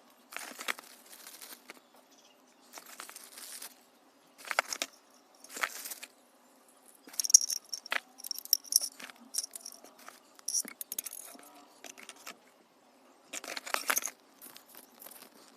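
Handling noises: bursts of rustling and sharp clicks and clatters, in irregular spurts with short pauses, as of packaging and small hard parts being handled.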